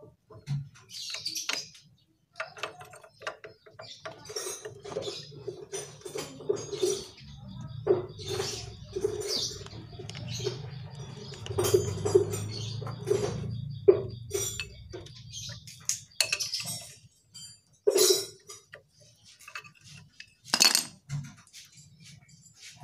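Scattered metallic clicks and clinks as a motorcycle's front brake caliper is handled and worked off the fork leg, with birds chirping faintly in the background.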